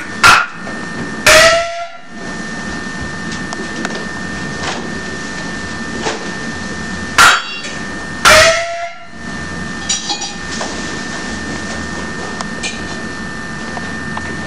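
Peking opera percussion: a sharp clack followed about a second later by a ringing gong stroke whose pitch rises slightly. The pair comes twice, about seven seconds apart, over a steady hum.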